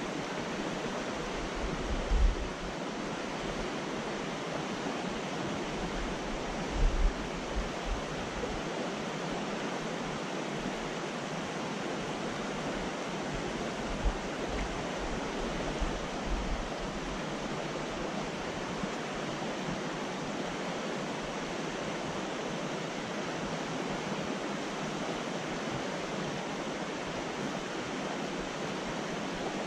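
A creek rushing over a shallow riffle: a steady wash of running water. A few brief low thumps come through in the first half.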